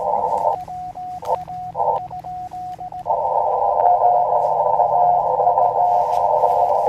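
Elecraft KX2 transceiver's Morse (CW) receive audio, band hiss confined to a narrow filter. From about half a second to three seconds in, the hiss cuts out and a clean keyed Morse sidetone is sent in dots and dashes. Then the hiss comes back with a faint Morse signal keying inside it.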